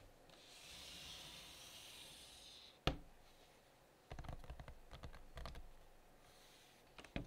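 A closed laptop with a metal chassis is slid across a desk with a soft rubbing hiss, then knocks sharply once about three seconds in. A run of light taps and clicks follows as fingertips move over its metal lid, with another small knock near the end.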